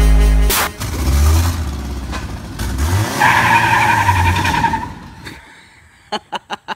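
Pickup truck engine revving, its pitch rising about three seconds in, with a high squeal over it for more than a second. The sound fades out after about five seconds, and a quick run of sharp clicks follows near the end.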